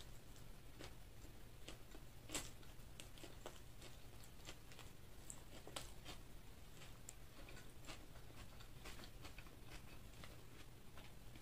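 Close, quiet mouth sounds of a person chewing a fried chicken burger: soft scattered clicks and crunches, with one louder crunch about two seconds in, over a faint steady low hum.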